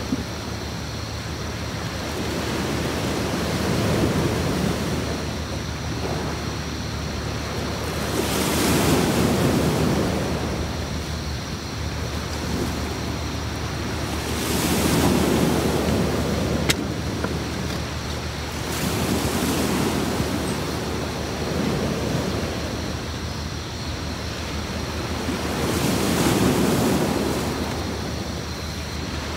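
Sea waves breaking on a beach, the surf swelling and falling back in slow surges about every five to six seconds.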